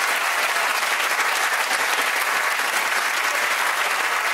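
Studio audience applauding, steady and sustained.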